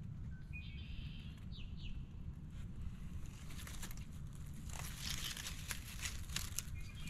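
Dry grass and leaf litter crackling and rustling under a hand in the second half, over a low steady rumble of wind on the microphone. A few short bird chirps come about a second in.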